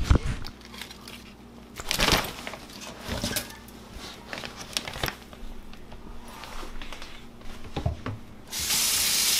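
A fabric cooler bag rustling and bumping against a stainless steel sink as it is handled, with scattered knocks and rubbing. About a second before the end, a steady rush of water from the tap starts pouring into the sink, the loudest sound here.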